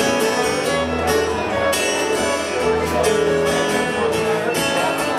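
Live band playing an instrumental passage: bowed fiddle, acoustic guitar and drum kit.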